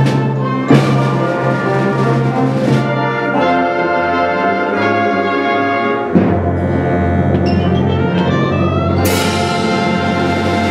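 Concert band playing a live arrangement of gospel spirituals: full brass and woodwind chords, with sharp percussion hits about a second in and about six seconds in, and a bright swell of sound near the end.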